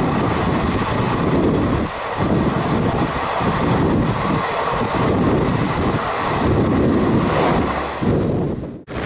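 Rush and rumble of two express trains crossing at speed, heard from the open doorway of one of them, with heavy wind noise on the microphone. Near the end the passing coaches are gone, and the sound drops out for an instant before the wind and track noise resume.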